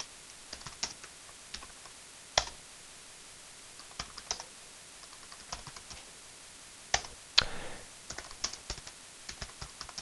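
Typing on a computer keyboard: irregular, scattered keystrokes, with a few sharper, louder key presses.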